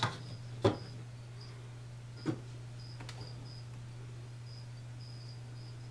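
A cricket chirping faintly in short high chirps that repeat irregularly, over a steady low hum. A few sharp clicks stand out in the first couple of seconds.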